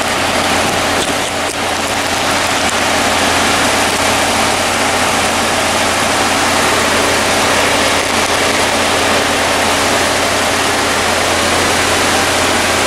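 Chevrolet Impala's 3500 V6 idling steadily with the air conditioning running: a low even hum under a loud, steady rushing noise.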